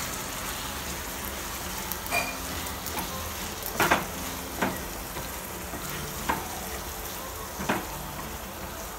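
Chopped tomatoes and onions sizzling in a kadai while a wooden spatula stirs them: a steady frying hiss with about five sharp knocks and scrapes of the spatula against the pan, the loudest about four seconds in.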